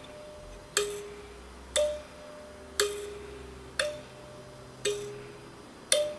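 Small kalimba (thumb piano) with metal tines plucked six times, about once a second, alternating between a lower and a higher note; each pluck is a sharp click followed by a short ringing tone.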